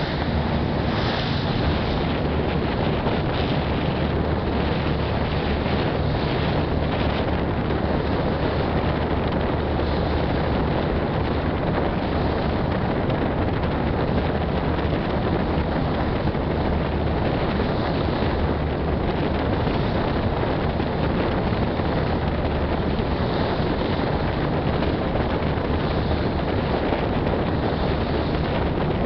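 Passenger ferry underway: a steady low engine drone under the rush of water along the hull, with wind buffeting the microphone.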